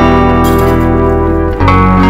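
Background music: a guitar-led instrumental playing sustained chords, moving to a new chord about one and a half seconds in.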